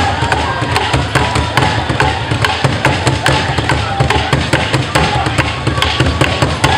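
Percussion music for a street dance: drums and other struck instruments beating a steady, quick rhythm of sharp strikes over low thuds.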